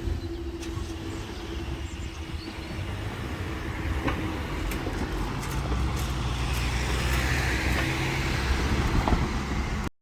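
Road vehicles running and passing by: a low engine rumble that grows louder, with tyre hiss near the end, cutting off suddenly.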